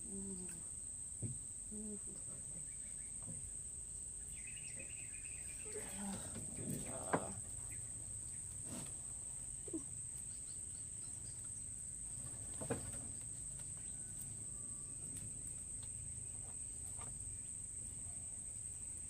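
A steady high-pitched insect drone, with a few short faint clicks and brief low murmurs.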